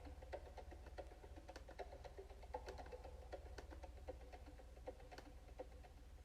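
Faint, sparse wood-block-like percussive notes of the Sound of Soul music, thinning out as the piece fades, over a steady low electrical hum.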